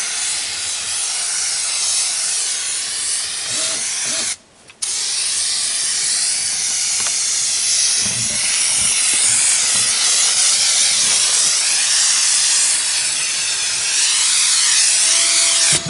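Aerosol spray can with a turbo spray nozzle spraying black coating: a steady, loud hiss, stopping once for about half a second about four seconds in, then running on.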